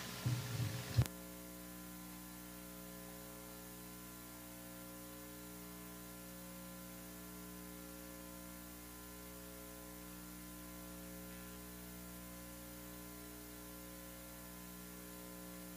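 Steady electrical mains hum and hiss on the broadcast audio line, a stack of fixed steady tones with no other sound. About a second in, a short low rumble ends in a click, after which only the hum remains.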